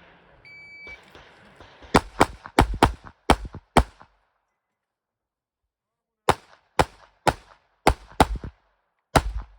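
Shot-timer start beep, then pistol shots fired in rapid strings: about eight shots in under two seconds, a pause of about two seconds, then another fast string of about eight shots.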